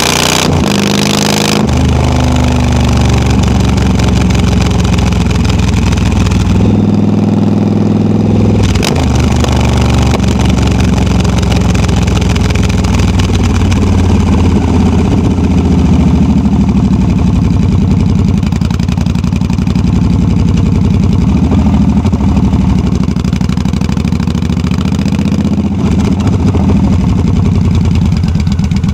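Yamaha V Star 1300's V-twin running on the move through loud Hard Krome drag pipes. The engine note is steady, apart from a change in pitch for about two seconds some seven seconds in.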